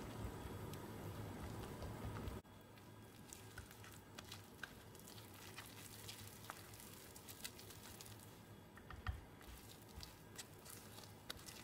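Red silicone whisk stirring flour into a thick sour cream pancake batter in a bowl: faint, soft squishing with scattered small taps of the whisk against the bowl.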